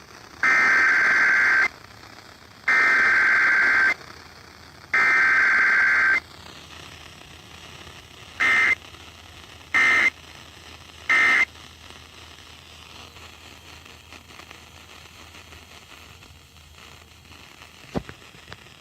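Emergency Alert System SAME data bursts of a Required Weekly Test: three buzzy two-tone data bursts of about a second each, encoding the test's header, then a few seconds later three much shorter bursts, the end-of-message code.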